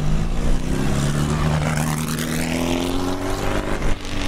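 Formula 1600 open-wheel race car engine running as the car pulls away, its pitch climbing as it accelerates.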